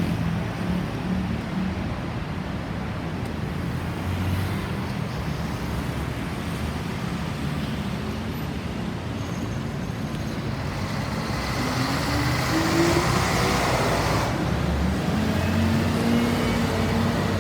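Steady road traffic noise, with one louder vehicle swelling past about two-thirds of the way in.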